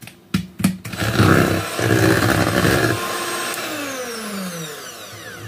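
Electric hand mixer beating flour into kefir sponge-cake batter. A few clicks come first, then the motor runs loudly for about two seconds. Over the last couple of seconds it runs quieter and its pitch falls steadily.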